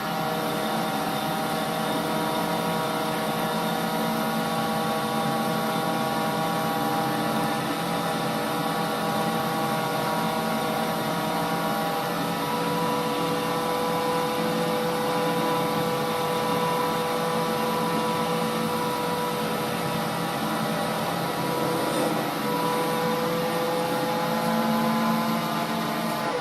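Holbrook C8 toolroom lathe running at steady speed while taking a turning cut, its motor and gearing giving a steady multi-tone whine.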